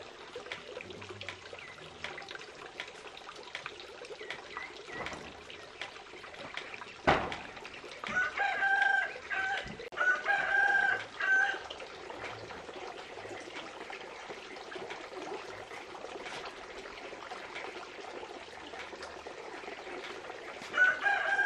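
A rooster crowing: one drawn-out, broken crow about eight seconds in, and another starting near the end. A single sharp knock comes just before the first crow.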